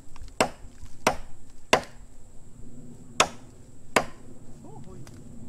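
Bamboo being chopped with a blade: five sharp blows, the first three about two-thirds of a second apart, then a pause of about a second and a half and two more.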